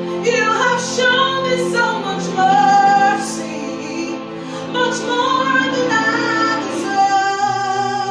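A woman singing a slow worship song with held notes, over instrumental accompaniment.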